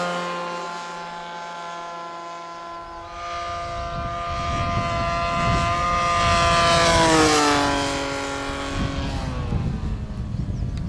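Radio-controlled model airplane engine buzzing overhead. It grows louder, then its note falls as the plane passes, about two-thirds of the way through. Wind rumbles on the microphone underneath.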